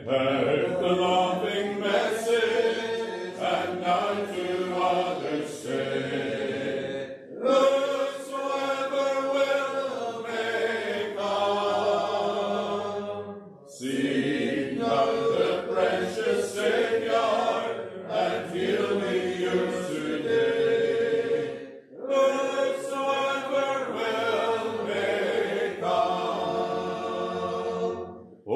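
Congregation singing a hymn unaccompanied, in long phrases with brief pauses for breath between lines.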